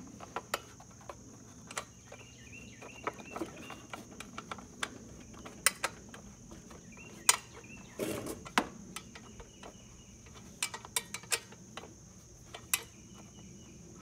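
Hand tools working the bolts that secure the engine's cover: irregular sharp metallic clicks and clinks with a brief scrape about eight seconds in, over a steady high insect buzz.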